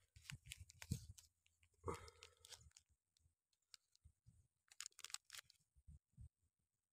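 Near silence with faint, scattered crackles and rustles: a short rustle about two seconds in and a cluster of crackles around five seconds in.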